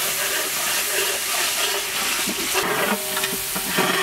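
Spiced oil-and-ghee masala sizzling and hissing in a large pot, with steam coming off it just after a splash of water. A metal spatula scrapes and stirs it in the second half.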